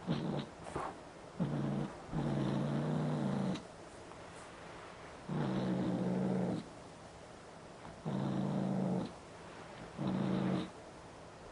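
A kitten growling low while holding a toy ball in its mouth, in six drawn-out growls of up to about a second and a half each, with short pauses between.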